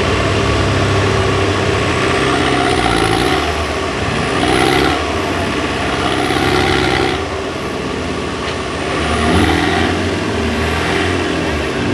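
Off-road trial buggy's engine revving in repeated surges while it is stuck in a deep mud pit, with its tyres churning the mud. A thin high whine rises and falls with each rev.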